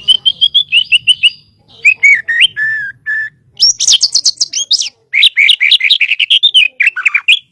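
White-rumped shama (murai batu) singing a loud, varied song. It opens with a quick run of repeated whistled notes, moves to a few lower slurred whistles, then a fast high-pitched trill and another rapid string of notes.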